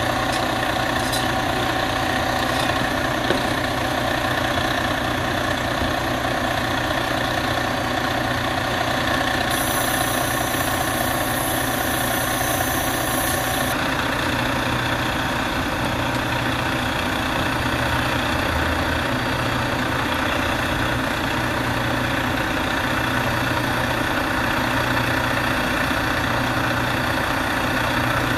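A heavy truck engine idling steadily, with a higher hiss joining for about four seconds near the middle.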